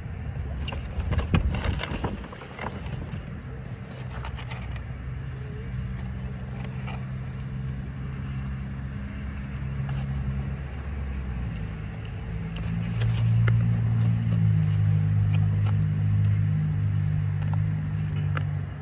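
A motor vehicle engine running with a steady low hum that shifts and grows louder about twelve seconds in, then drops away near the end. A few sharp clicks and rustles in the first three seconds.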